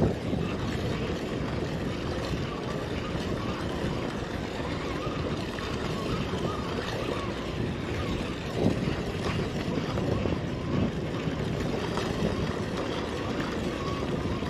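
Steady wind on the microphone and water noise on the deck of a sportfishing party boat, with a couple of brief knocks partway through.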